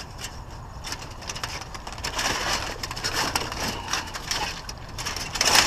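Lightweight scrap trim being picked up and handled, with irregular crackling and clattering that gets busier about two seconds in and peaks near the end. A car engine idles steadily underneath.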